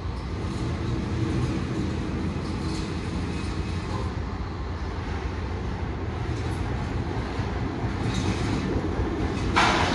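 A train running close by, a steady low diesel engine rumble that grows louder, with a brief sharp hissing noise near the end.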